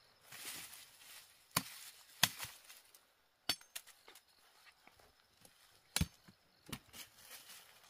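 A series of sharp knocks or chops at uneven intervals: about five louder ones with smaller taps between. A brief rustle comes just after the start.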